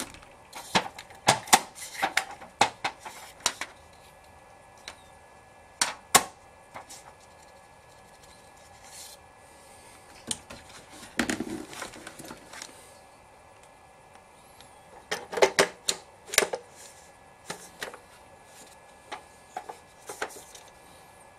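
Irregular clicks, taps and knocks of hard plastic and metal as an Orlit Rovelight RT 400 battery studio strobe and its metal reflector are handled, set down and turned over, coming in several short clusters.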